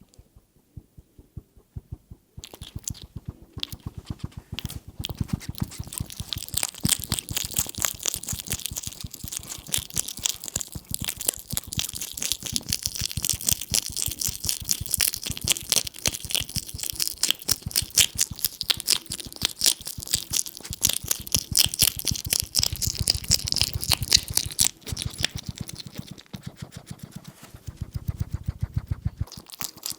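European hedgehog chewing and chomping, a fast steady run of small crunching clicks that starts a couple of seconds in. Twice in the second half a low rumble joins it.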